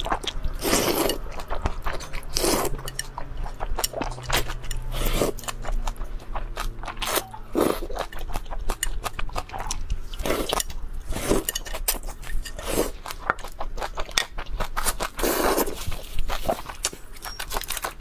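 Close-miked eating sounds of a person slurping and chewing noodles: a steady run of wet mouth clicks and smacks, with a longer slurp every second or two.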